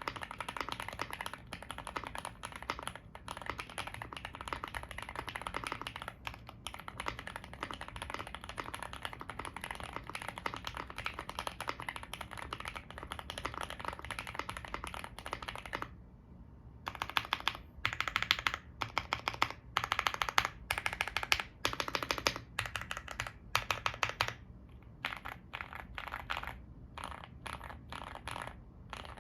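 Typing on a weight-modded, fully foamed GMK81 mechanical keyboard with Gateron Yellow Pro 2.0 linear switches and Aifei double-shot ABS Cherry-profile keycaps: a steady, fast clatter of keystrokes. After a brief pause about halfway through, the stabilized keys are pressed over and over, first in louder rapid clusters and then as separate single presses.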